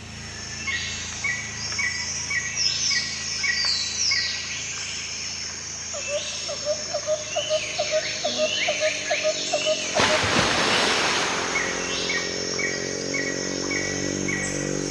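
Several birds chirping and calling, with short repeated notes and quick sliding calls, and a lower call repeated a few times a second partway through. About two-thirds of the way in, the steady rush of falling water comes up beneath the birdsong.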